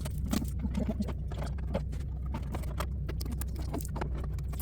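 Irregular light clicks and taps of hard plastic parts as a Breyer model horse trailer and its small pieces are handled and opened, over a steady low hum.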